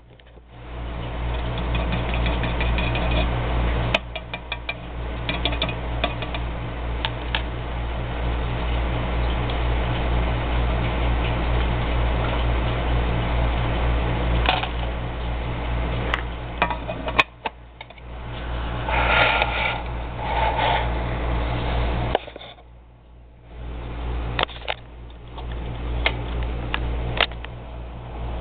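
Small air pump humming steadily while it aerates a sea monkey tank, with a few clicks. The hum cuts out a little over twenty seconds in and comes back about two seconds later.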